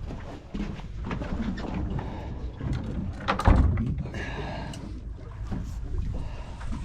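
Wind rumbling on the microphone aboard a boat, with one loud thump about three and a half seconds in.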